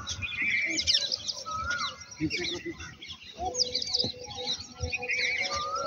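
Several birds chirping and calling: many short high chirps, a couple of quick trills, and a rising-and-falling whistle heard twice.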